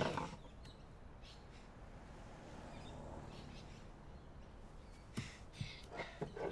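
Quiet room tone, then a few small knocks and clicks near the end as pieces of a broken trophy are handled on a hard floor.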